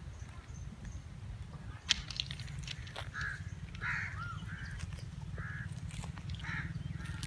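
Crows cawing repeatedly, short calls coming every second or so, over a steady low rumble. A single sharp click about two seconds in is the loudest sound.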